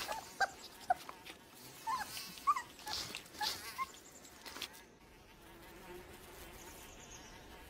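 Wolf pups squeaking and whimpering while they eat meat: a string of short, high squeaks over the first few seconds, mixed with a few scuffs. After that only a faint steady buzz remains.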